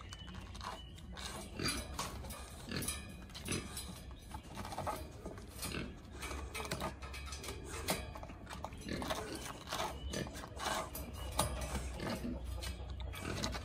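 A caged dog makes short, irregular animal noises and scrapes its paw on concrete as it reaches out through the metal bars.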